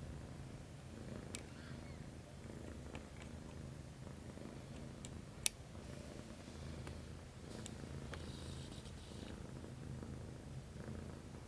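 Domestic cat purring steadily, with a few faint clicks and one sharp click about halfway through.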